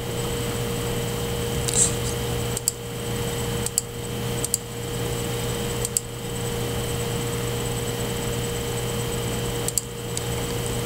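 A computer mouse clicking a handful of times, single clicks a second or more apart, over a steady background hum that holds several constant tones.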